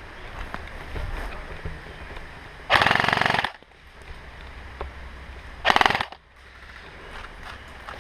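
An airsoft gun firing full-auto twice, a rapid rattling burst of just under a second and then a shorter one about three seconds later.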